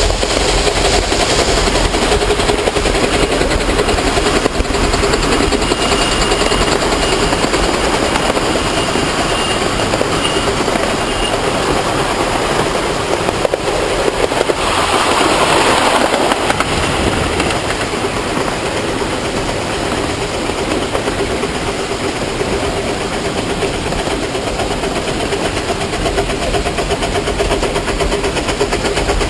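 Miniature riding-railroad trains running on the track, with a steady engine and wheel noise throughout. About halfway through there is a louder rush of noise lasting about two seconds.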